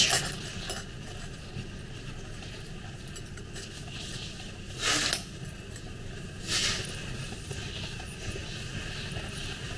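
Soft handling sounds of a watch and jewellery being put on: a faint click near the start and two short handling noises about five and six and a half seconds in, over a steady low hum.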